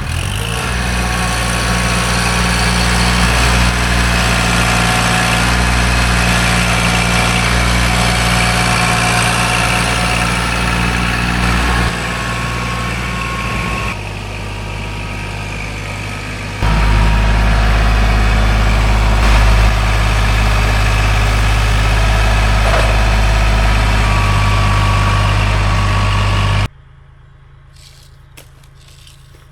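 Gas engine of a portable bandsaw sawmill running steadily, getting louder about two-thirds of the way through, then cutting off abruptly near the end.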